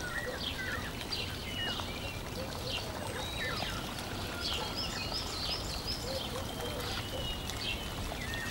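Birds chirping in many short, quick rising and falling calls over a steady rushing background noise, like a birdsong-and-stream ambience bed.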